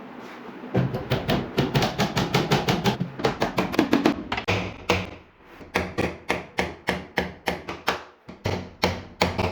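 Hammer blows, a rapid run of sharp knocks at about four or five a second, with short pauses about five and eight seconds in.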